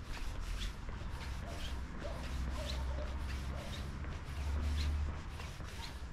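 Walking footsteps, about two steps a second, over a steady low rumble.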